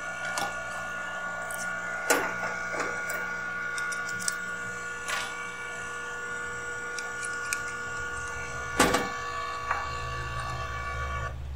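Steady electric whir of a fan-driven tool on a microsoldering bench, with scattered small clicks and taps of hand tools, the loudest about 9 s in. The whir cuts off near the end.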